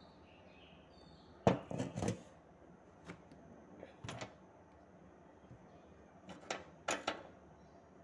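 Clicks and knocks of a limit switch being handled and set onto its mount: a quick cluster of sharp clicks about a second and a half in, single fainter ones a little later, and another cluster near the end.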